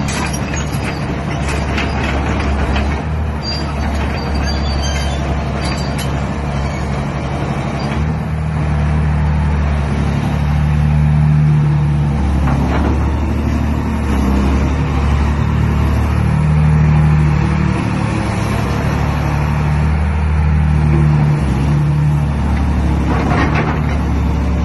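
Fiat Hitachi FH300 excavator's diesel engine running under hydraulic load as the boom and bucket are raised and lowered, its steady low note swelling louder for a few seconds at a time as the hydraulics work. A few clanks sound near the start and again near the end.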